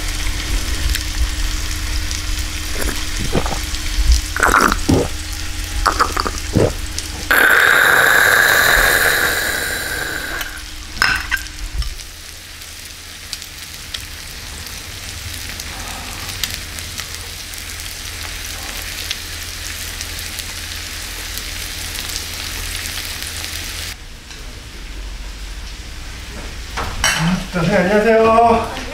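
Beef intestines (gopchang) sizzling in a hot pan on a tabletop burner: a steady frying hiss, with a few sharp taps of tableware in the first several seconds and a louder hiss for a couple of seconds about eight seconds in. The sizzle stops about 24 seconds in, and voices follow.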